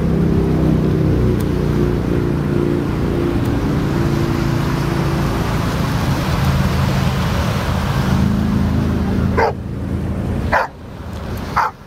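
A dog barks three times near the end, short sharp barks about a second apart. Under them runs a loud, steady low rumble.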